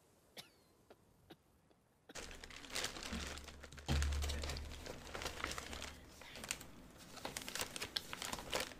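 Brown paper mailer bag crinkling and rustling as it is handled and torn open, starting about two seconds in, with a low thump about four seconds in.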